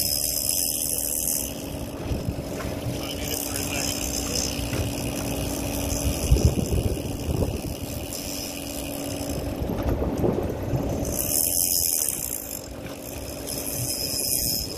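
A charter fishing boat's engine running steadily, with water rushing and splashing along the hull. Gusts of hiss come near the start and again about eleven seconds in.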